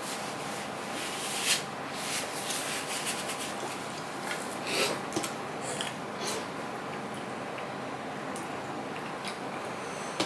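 Eating by hand: fingers mixing rice and curry on a steel plate, and the mouth sounds of eating, heard as a run of short wet clicks and squishes through the first six seconds or so. After that there is mostly a steady background hiss with a few faint ticks.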